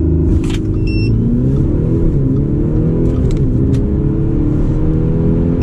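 Audi SQ5's 3.0-litre twin-turbo V6 diesel at full throttle from a brake-torqued launch, heard from inside the cabin. The engine note climbs, drops at two quick upshifts of the automatic gearbox, and climbs again.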